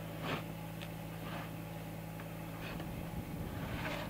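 Small farm tractor's engine running steadily at idle, turning rougher about three seconds in, with several short scuffs and knocks on the wooden roof boards.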